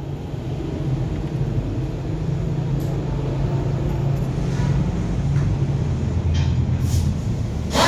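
Vehicle engine idling steadily, with a short sharp knock near the end.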